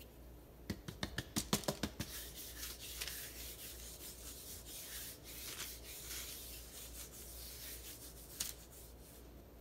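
A hand rubbing ghee over a sheet of rolled cashew (kaju katli) dough on parchment paper: a quick series of soft taps about a second in, then a steady scratchy rub of palm over dough and paper.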